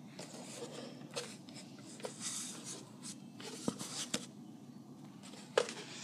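Scattered small scrapes and clicks of hands working debris out of the plastic dust port of a Shark cordless handheld vacuum, with the vacuum switched off.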